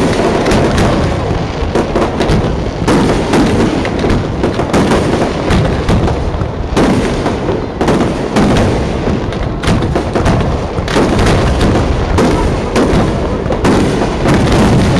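Aerial firework shells bursting in a dense barrage: many sharp bangs one after another over a continuous rumble.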